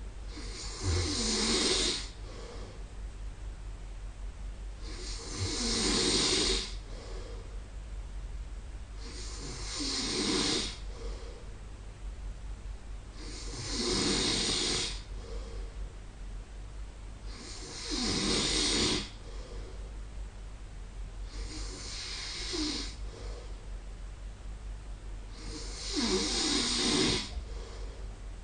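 A man snoring in light sleep, one rough, rasping snore about every four seconds, seven in all, each lasting a second or two with quieter breathing between.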